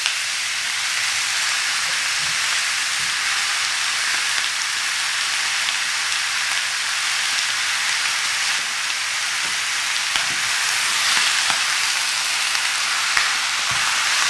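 Cubed pork belly sizzling steadily as it sears in a hot, oil-free wok, rendering out its own fat.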